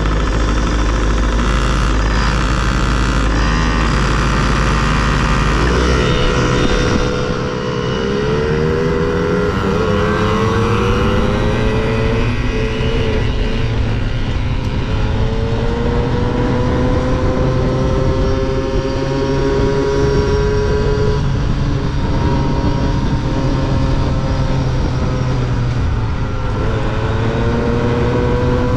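Yamaha PW50 mini dirt bike's small two-stroke single-cylinder engine heard up close from on the bike. It idles with a low steady drone for about six seconds, then revs up. Its pitch then climbs and dips again and again as the throttle is opened on the straights and eased into the turns of a dirt oval.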